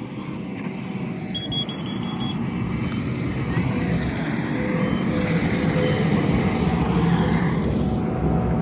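Diesel engine of a heavy earthmoving machine running under load, growing steadily louder. About a second and a half in there is a short run of rapid, high-pitched beeps.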